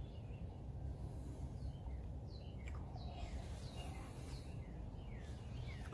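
Quiet ambience: scattered short, falling bird chirps over a steady low rumble.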